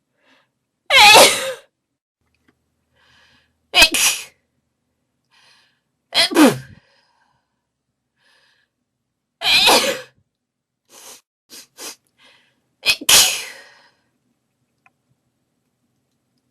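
A person sneezing five times, a few seconds apart, each sneeze a sudden loud burst, with faint in-breaths between them and a few short, quieter bursts between the fourth and fifth. The sneezes are deliberately induced.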